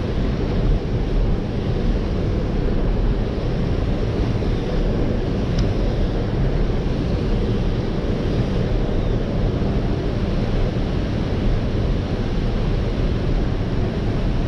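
Water pouring through a dam and churning as whitewater below it, a steady rush of noise, with wind rumbling on the microphone.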